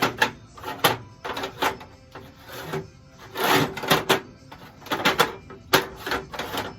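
Supplies being handled and packed into storage cabinets: irregular clicks, knocks and rattles of small hardware and containers, with a longer clatter about three and a half seconds in.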